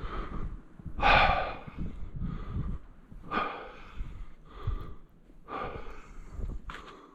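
A man breathing hard, a run of loud breaths about once a second, out of breath from exertion.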